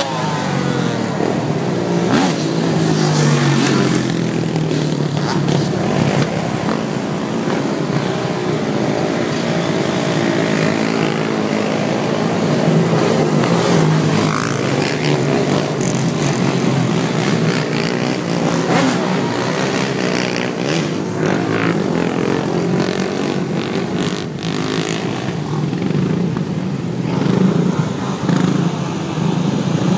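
Several dirt bike and four-wheeler engines running and revving at once, their pitch rising and falling throughout.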